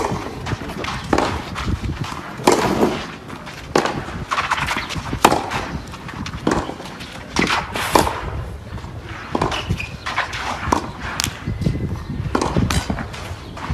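Tennis balls struck with rackets in a baseline practice rally on a clay court: sharp pops about every one to one and a half seconds over a steady background hiss.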